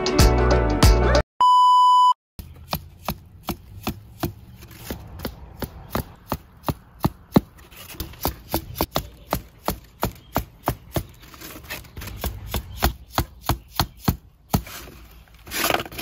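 Background music ends in the first second and a steady electronic beep sounds briefly, the loudest thing here. Then a rubber mallet drives tent stakes into packed dirt with a long run of even strikes, about three a second.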